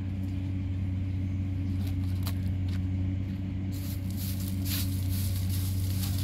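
Steady low hum with a few light clicks and rustles about two seconds in and again near the middle.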